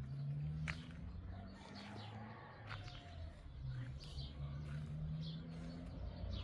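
Small birds chirping now and then, short high calls scattered through, over a low steady hum.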